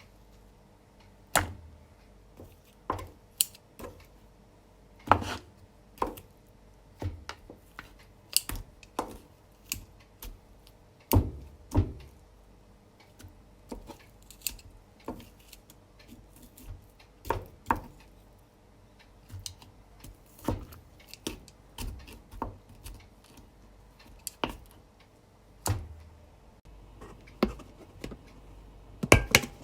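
Sharp taps and clicks at irregular intervals, about one a second, with a loud double knock near the end.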